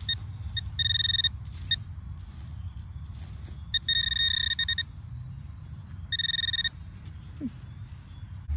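Metal-detecting pinpointer giving repeated buzzing beeps of one steady pitch, switching on and off several times as it is worked over a tiny buried target: a small piece of necklace chain.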